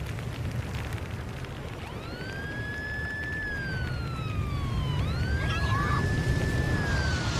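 A siren wailing: it rises, holds and slides back down over about three seconds, twice, starting about two seconds in. Under it runs a steady low rumble.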